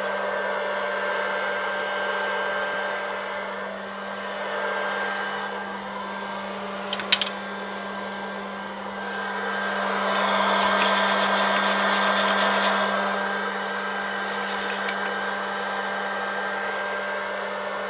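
Hot air popcorn popper running with its fan motor and heater on, a steady hum with rushing air, churning a freshly charged load of green coffee beans at the start of a roast. A single sharp click comes about seven seconds in, and the air noise swells louder for a few seconds in the middle.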